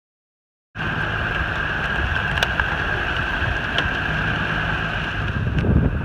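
Steady rush of heavy rain mixed with a vehicle's low rumble, cutting in abruptly about a second in, with a few sharp ticks scattered through it.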